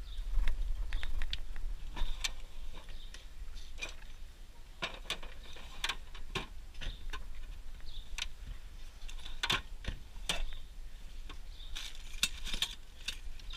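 Irregular sharp metallic clicks and clinks of used hand tools and toolbox parts being handled, with a low rumble in the first couple of seconds.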